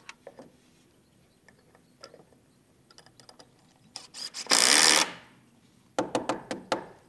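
Cordless drill driving decking screws through a wooden L-bracket into a rafter: a loud half-second burst of drilling about four and a half seconds in, then a quick run of sharp clicks a second later.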